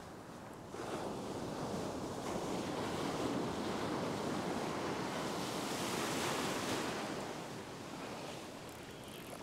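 Ocean surf breaking and washing in around the shins in shallow water, swelling up about a second in and easing off near the end.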